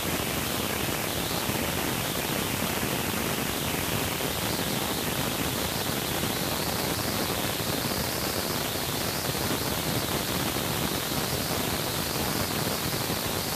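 Steady, even hiss like static, with no distinct knocks, calls or other events standing out.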